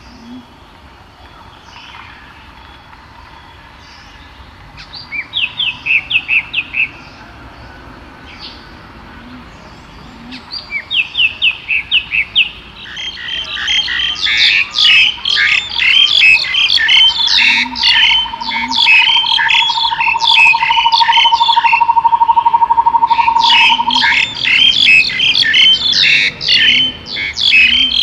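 Songbirds chirping: a couple of quick runs of short falling notes, then from about halfway in many birds calling over one another in a dense chorus. A long, even, lower trill runs under the chorus for several seconds in the middle.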